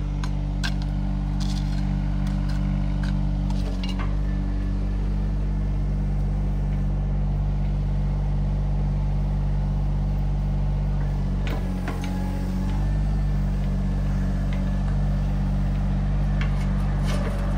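Excavator engine running steadily at working revs, its note dipping briefly twice, with a few short sharp knocks.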